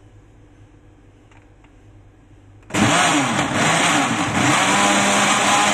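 Faint room noise, then a countertop blender motor switched on about two and a half seconds in, running loud and chopping celery, parsley, ginger and lemon in water. Its pitch wavers at first as the blades catch the stalks, then settles into a steady hum.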